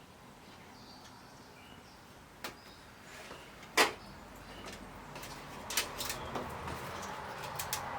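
Hands working a new LED backlight strip and the backing of its adhesive tape: a sharp plastic click near the middle, then a run of small clicks over crinkly rustling as the backing is peeled a little at a time and the strip is lined up.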